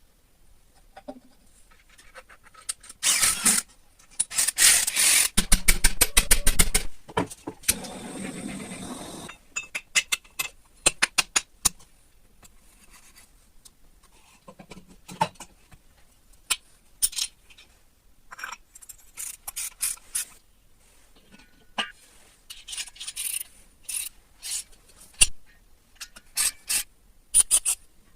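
Irregular scraping and rubbing, with bursts of rapid sharp clicks and scattered knocks, loudest during the first third.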